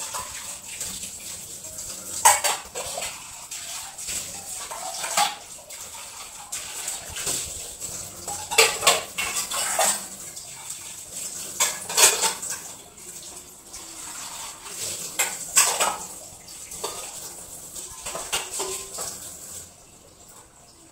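Metal pots, pans and utensils clattering as they are handled and set down in a kitchen, with a sharp clank every two or three seconds.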